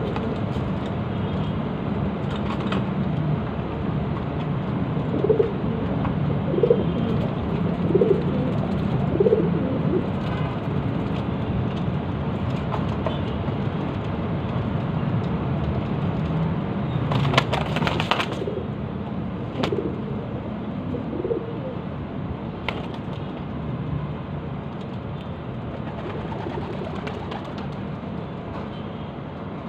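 Domestic pigeons cooing over a steady low hum, with a run of four short coos in a row and a couple more later. A brief noisy rustling burst comes about two-thirds of the way through.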